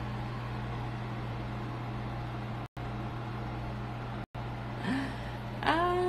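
Steady low electrical-sounding hum of room noise picked up by a phone microphone, cut twice by a split-second dropout in the audio. Near the end comes a short voiced sound whose pitch rises and then falls.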